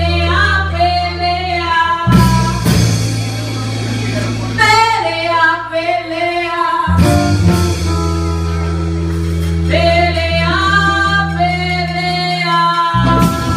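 Background music: a song with a woman singing over long held bass notes, with a few drum and cymbal hits.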